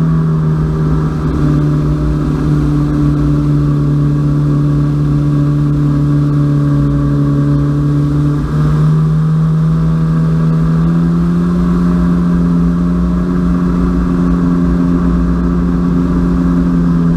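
Personal watercraft engine running at steady cruising speed, its pitch stepping up slightly twice about halfway through, over a low rush of wind and water.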